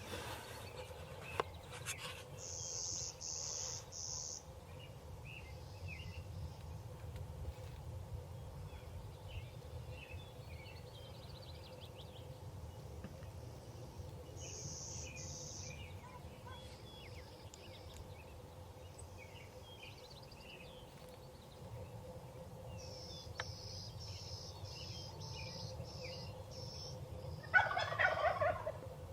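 Wild turkeys gobbling, with one loud gobble near the end and fainter distant gobbles and calls throughout. Other birds sing short runs of high, repeated notes several times.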